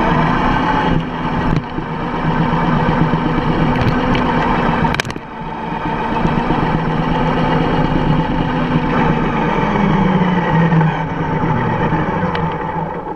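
Traxxas X-Maxx electric RC monster truck driving on asphalt, heard from on board: a steady motor and drivetrain whine over tyre and wind noise. About five seconds in there is a sharp knock, and the sound briefly dips before it picks up again.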